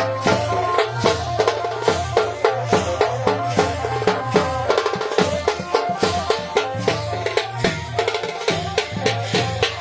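Wedding band playing a folk tune: a melody line over busy, driving drumming.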